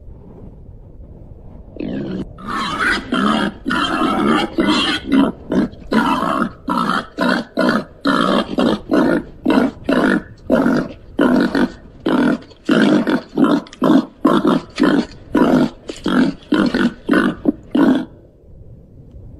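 Babirusa grunting in a long, rapid series of short grunts, about three a second, starting about two seconds in and stopping near the end.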